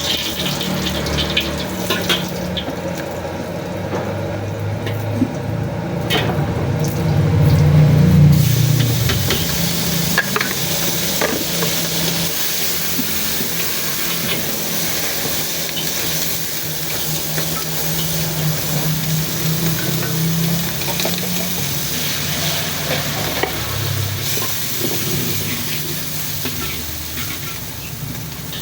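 Food sizzling in a hot wok as it is stirred and tossed, with short clinks of a metal spatula against the pan. A low steady hum runs underneath, heaviest in the first third.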